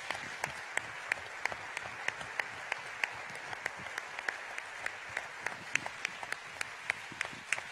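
A large audience applauding steadily, a dense even patter with many louder single claps standing out from hands clapping close by.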